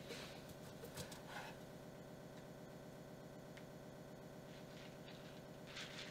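Quiet room tone with a steady faint hum. A few faint soft rustles and light clicks come in the first second or so and again near the end.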